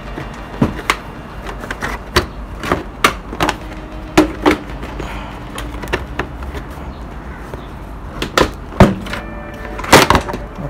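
Plastic body panels of a Honda RS150R being pulled off by hand: a string of irregular sharp clicks and knocks as the clips pop and the plastic clacks, the loudest just before nine seconds and about ten seconds in.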